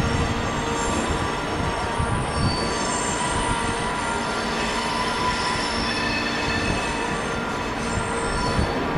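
Train wheels squealing on the rails as a train moves slowly along the track, several high steady squeal tones sliding and swapping over a continuous rumble.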